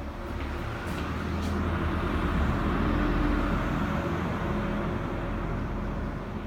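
Road traffic noise: a steady rumble of passing vehicles that swells about two seconds in and eases off again near the end.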